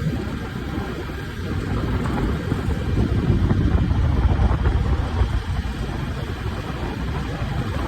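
Preet 987 combine harvester's diesel engine running as the machine drives. It makes a low rumble that grows louder about two to three seconds in and eases somewhat near the end.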